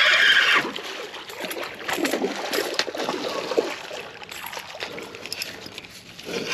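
A hooked fish splashing in the shallows at the bank at the start, followed by rustling and light scraping as a jacket sleeve brushes the camera and the rod and reel are handled.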